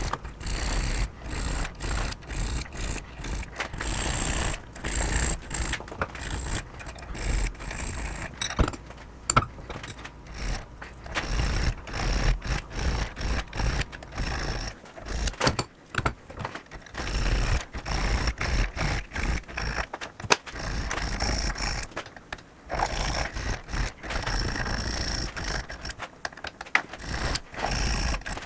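A hand file scraping on a small metal part in short, irregular repeated strokes.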